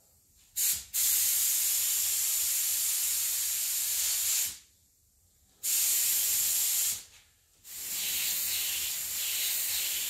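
SATA Mini Jet touch-up spray gun spraying paint at low pressure, a steady airy hiss in a brief blip and then three long passes of a few seconds each, with short pauses between.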